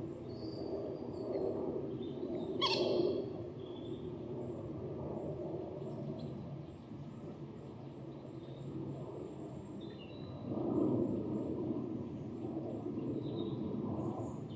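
Wild birds calling over a steady low background rumble: one short loud call about three seconds in, with faint high calls and chirps scattered through the rest.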